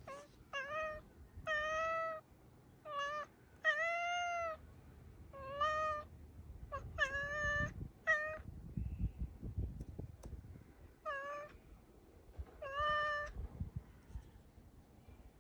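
Black house cat calling at a bird outside: about ten short, thin, high-pitched meows and chirps, some rising and falling in pitch, in a string with pauses between them. This is the cat's hunting chatter at a bird, which is always feeble and thin.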